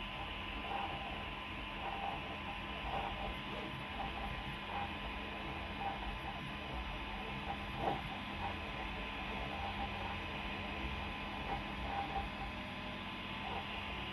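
Original Prusa i3 3D printer printing: a steady hum, likely its cooling fans, with short irregular chirps from the stepper motors as the print head moves.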